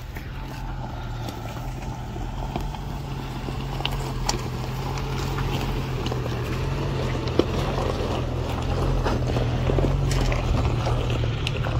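Jeep Cherokee XJ's engine running at low speed as it crawls over a rocky trail, with stones clicking and crunching under the tyres. The engine grows steadily louder as the Jeep comes close.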